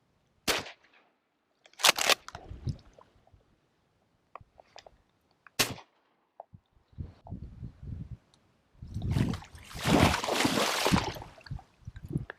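Three shotgun shots from a Benelli: one about half a second in, one about two seconds in and one a few seconds later, fired at passing ducks, one of which is brought down. Near the end comes a longer stretch of rustling noise.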